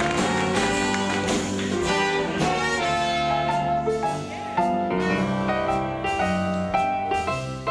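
Grand piano playing a sing-along tune.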